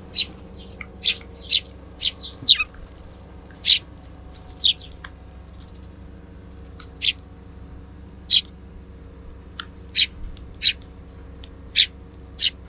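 Sparrows chirping: a dozen or so short, sharp, high chirps at irregular intervals, with a pause of about two seconds in the middle, over a faint steady hum.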